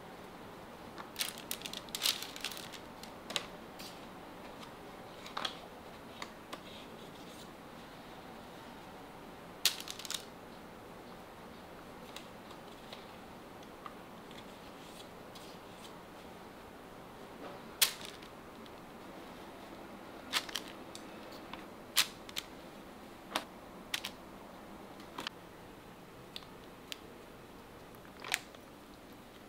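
Scattered light clicks and taps of kitchen utensils and dishes being handled, over a faint steady hum; the two sharpest knocks come about a third of the way in and just past the middle.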